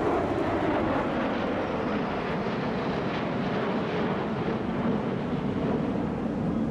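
Jet engines of six F-16 Fighting Falcons passing in close formation: a steady rush of jet noise that falls in pitch in the first second as they go by.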